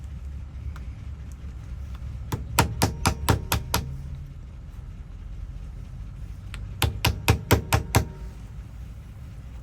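Hammer tapping, in two quick runs of about six sharp strikes each, the second run near the end.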